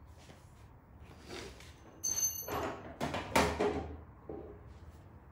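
Hard objects being handled and set down: a series of knocks and thuds, the loudest about three and a half seconds in, with a short high ring about two seconds in.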